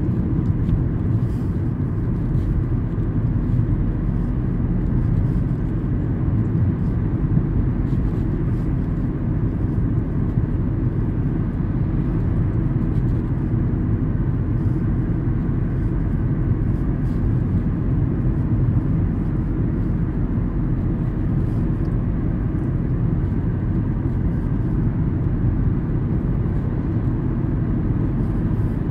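Inside the cabin of a moving Volkswagen car: a steady low rumble of engine and tyre noise at a constant pace.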